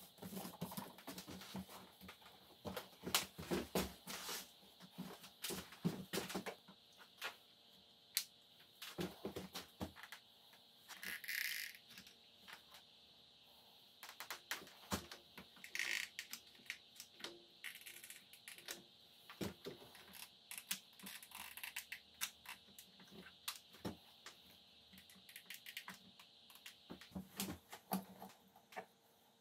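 Hands working at a wooden workbench: irregular clicks, taps and knocks with a few short rustles, as paper is pressed onto a board, bar clamps and a hot glue gun are handled, and a plastic jug and measuring cup are set down, over a faint steady hiss.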